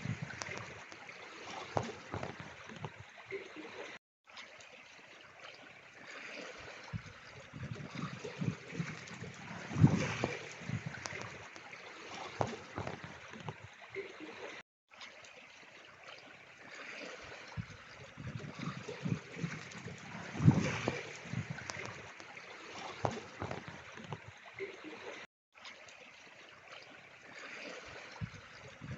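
Trickling, gurgling running water. It is a short recording looped about every ten and a half seconds, with a brief cut to silence at each join.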